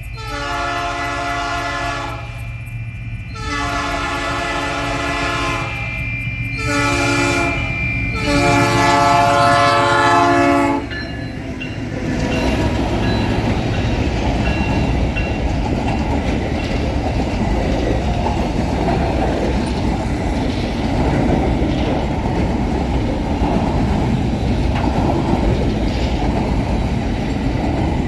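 Diesel locomotive horn sounding four blasts, the third short and the last the longest, over a low engine drone. Then an empty freight train passes close and fast, its wheels rumbling and clattering steadily on the rails.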